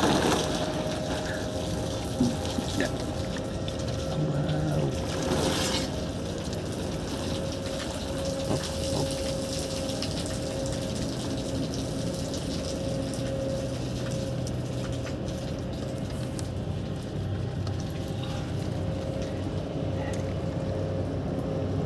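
Rainwater pooled on a truck's tarp splashing and being scooped and poured with a dipper as men bathe in it, with a louder rush of water about five seconds in. A steady hum runs underneath.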